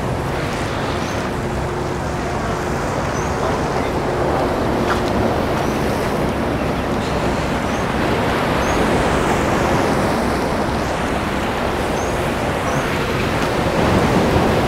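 Steady rushing noise of wind and sea waves along a harbour, with a low steady hum in the first few seconds.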